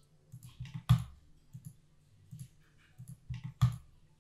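Scattered clicks of a computer mouse and keyboard, with two louder clicks about a second in and near the end.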